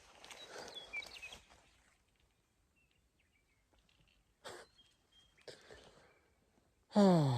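Faint bird chirps over a few soft rustles, then near the end a man's loud falling vocal sound, a dismayed sigh or groan.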